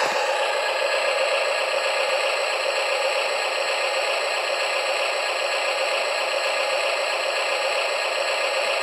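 Steady whirring with a light rattle from the radio-controlled Huina wheel loader's electric drive motors and plastic gearboxes as it rolls along the trailer deck.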